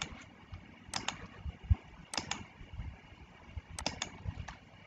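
Computer mouse clicking: a few short, sharp clicks, some in quick pairs, over a faint background hiss.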